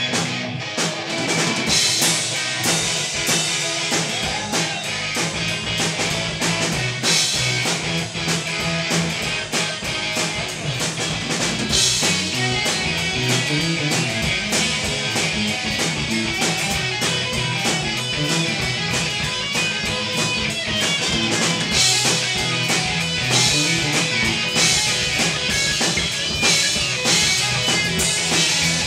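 Live rock band playing an instrumental passage: a drum kit with kick drum and repeated cymbal crashes, under steady guitars.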